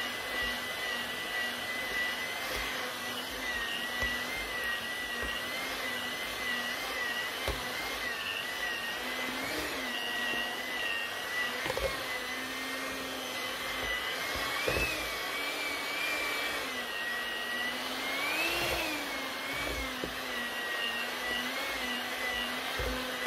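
Electric hand mixer with dough hooks kneading bread dough: a steady motor whine whose pitch wavers and rises briefly a few times, with a few short knocks.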